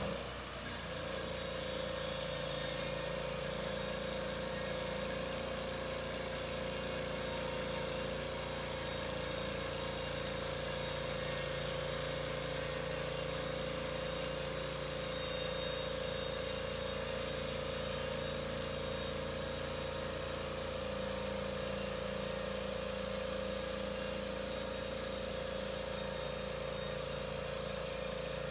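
Norwood HD36 portable bandsaw mill running steadily under load, its engine and blade cutting along a 16 ft pine log, with a constant high whine over the engine note.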